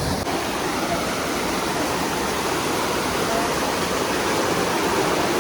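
Steady, loud rushing of falling water, a waterfall or stream close by.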